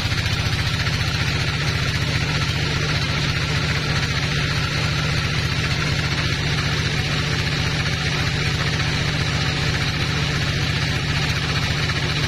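Large bandsaw mill running steadily with its blade cutting through a teak log: a steady low hum under a hissing sawing noise.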